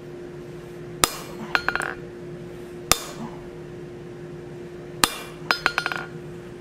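Blacksmith's hammer striking a hand-held top tool on hot mild steel over the anvil, drawing out the lobes of a forged oak leaf. Three sharp blows come about two seconds apart, and the first and last are each followed by a quick run of lighter ringing taps. A steady low hum runs underneath.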